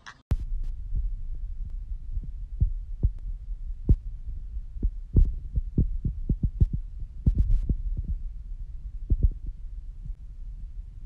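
Water from a kitchen faucet running onto a bathing peach-faced lovebird and splashing on a stainless steel sink: a steady low rumble with many irregular sharp ticks.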